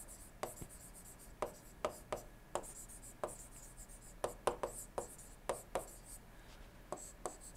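Pen stylus tapping and scratching on a tablet surface during handwriting: a quick, irregular string of faint short ticks.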